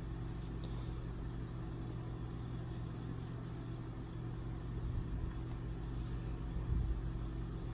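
A steady low electrical-sounding hum, with a few faint light ticks over it.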